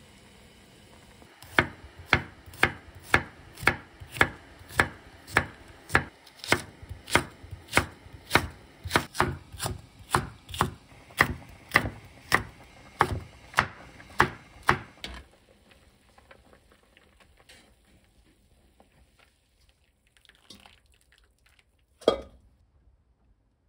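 Kitchen knife slicing chili peppers on a wooden cutting board: a steady run of sharp chops, about three every two seconds, that then stops. A single loud knock near the end.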